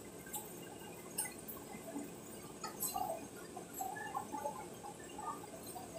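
Water bubbling in a pot on a gas stove, faint irregular little pops, with a few light clicks.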